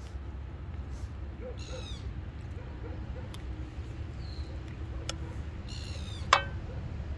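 Portable gas cartridge stove burning steadily under a frying pan while a spatula stirs and scrapes a thick sauce. One sharp clack with a brief ring about six seconds in, the spatula knocking the pan.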